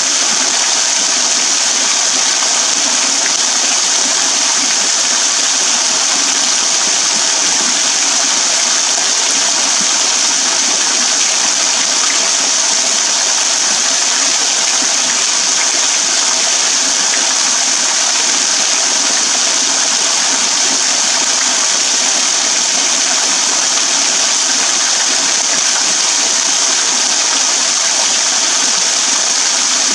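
Small waterfall pouring off a rock overhang in thin streams and drops, splashing steadily onto wet ground and a shallow pool below.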